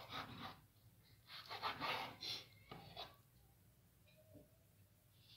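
Chef's knife slicing a raw grey mullet fillet against a wooden cutting board: a few short, quiet scraping strokes.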